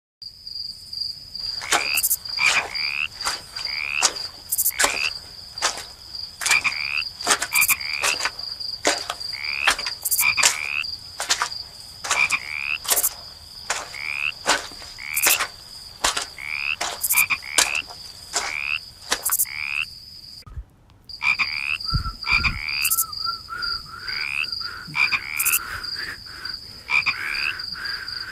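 Chorus of frogs calling in a swamp: many quick rising chirps and sharp clicking croaks over a steady high-pitched tone. About twenty seconds in the sound drops out briefly, followed by a low thump, and a wavering mid-pitched tone joins the chorus.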